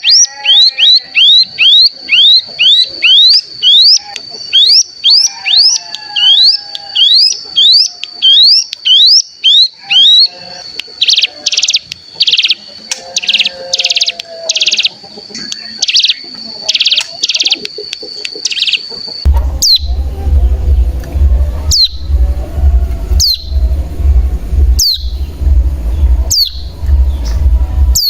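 Ciblek gunung (a prinia) calling on a lure recording. A fast string of high down-slurred chips runs over a held thin whistle, then comes a series of buzzy trilled bursts. About two-thirds of the way in the recording changes to single sharp chirps every second or so over a low hum.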